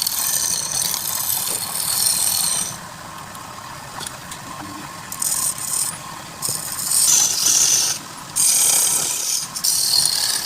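Turning tool cutting into wood spinning on a lathe: four scraping cuts of one to three seconds each, with the lathe running steadily underneath.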